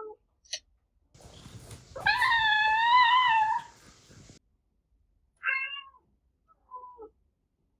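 Domestic cats meowing, several calls from different recordings. The loudest is one long, drawn-out meow with a wavering pitch about two seconds in, followed by shorter meows.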